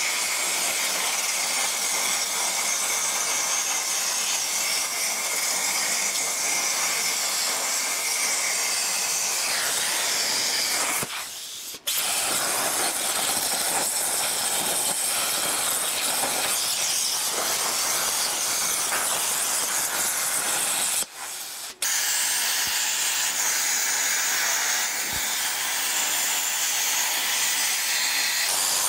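Hynade 80-amp plasma cutter on a CNC table cutting steel diamond plate: the plasma arc and its air blast give a steady loud hiss, with a thin high whistle over roughly the first third. The hiss stops twice for about a second, about eleven seconds in and again about ten seconds later, then resumes.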